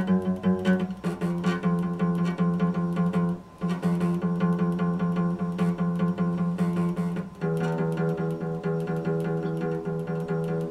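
Epiphone acoustic guitar played solo, fingerpicked in a quick, steady stream of notes. The playing breaks off briefly about three and a half seconds in and moves to a new chord about seven seconds in.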